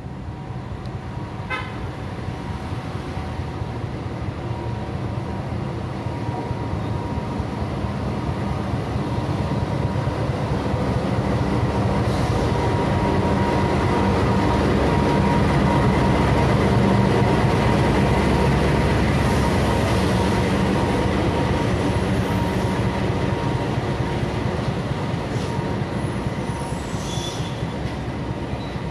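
CC206 diesel-electric locomotive hauling a passenger train slowly into the station. Its engine grows louder as it approaches, is loudest as it passes about halfway through, then the coaches rumble past on the rails. A steady high whine runs through it.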